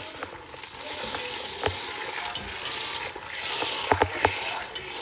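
Butter sizzling as it melts in a pan on medium-high heat, stirred with a utensil, with a few sharp clicks of the utensil against the pan.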